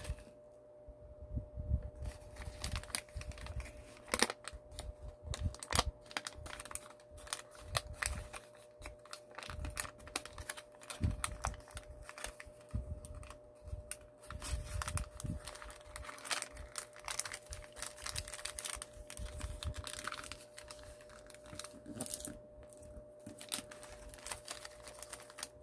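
Paper rustling and crinkling as a 15 cm origami sheet is folded and creased by hand, in short irregular crackles. A faint steady hum runs underneath.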